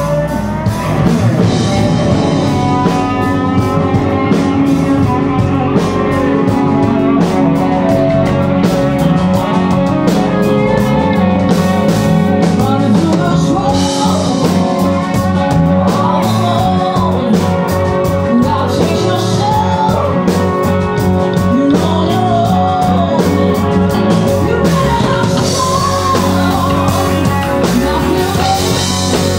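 Live rock band playing: singing over electric guitars, with a drum kit driving a fast, steady beat.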